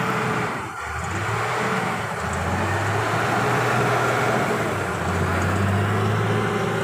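A motor vehicle engine running steadily, with a low hum and road noise.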